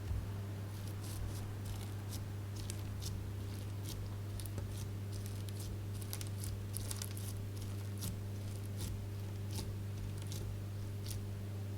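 Slime being squished and worked, giving irregular small crackles and pops, over a steady low hum.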